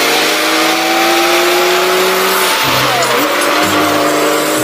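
Heavy diesel haulage trucks driving past, their engines running loud and steady. The engine pitch dips and climbs again about three seconds in.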